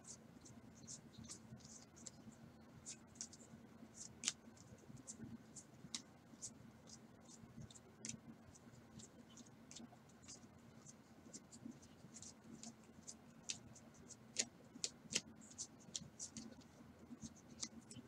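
Faint, quick flicks and scrapes of baseball cards being slid one at a time off a stack held in the hand, several irregular clicks a second.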